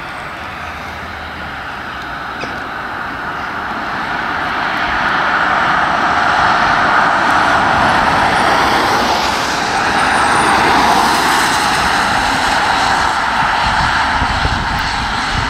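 Steady vehicle noise that swells to a peak in the middle and eases off near the end.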